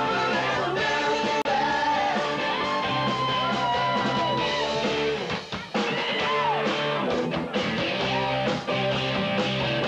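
A live rock band playing: electric bass guitar and drum kit, with a sung lead vocal and a cowbell struck along with the beat.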